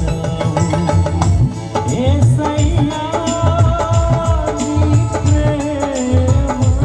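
Live band music through a PA: a steady hand-drum beat under keyboard chords, with a singer holding long notes of the melody.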